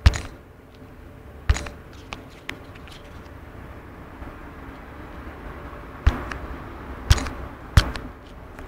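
A bicycle lock being worked open by hand: sharp metallic clicks and knocks, about five loud ones at irregular intervals with a few fainter clicks between, over steady low background noise.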